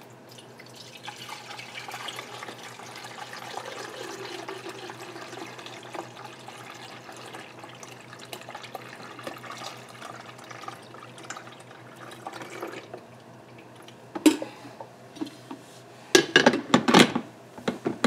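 Water pouring from a glass carafe into a drip coffee maker's water reservoir, a steady splashing pour lasting about twelve seconds. Near the end come a knock and then a quick run of louder clunks as the glass carafe is set back into the machine.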